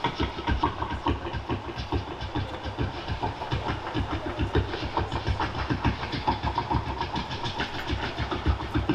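Rapid, uneven series of low thumps, several a second, that stop just before the end.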